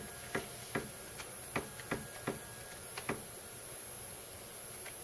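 570 oz-in NEMA 23 stepper motor on a CNC mill axis being pulsed a step at a time, giving single sharp clicks at uneven intervals, about eight in all, as the table is inched toward a zero reading.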